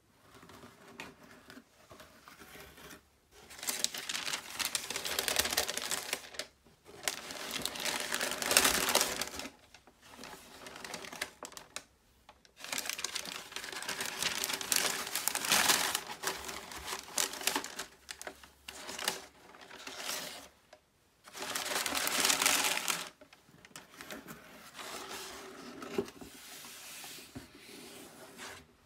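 Shoebox tissue paper crinkling and rustling as it is handled and folded back, in several long bursts of a few seconds each, with quieter handling of the cardboard box between.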